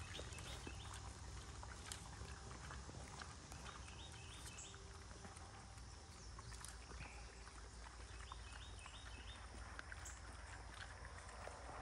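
Faint sounds of KuneKune pigs eating collard and kale leaves and rooting in the mud: scattered small crunching clicks of chewing and snuffling.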